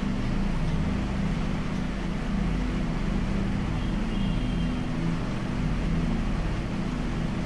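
Heavy rain falling: a steady, even hiss with a low rumble underneath.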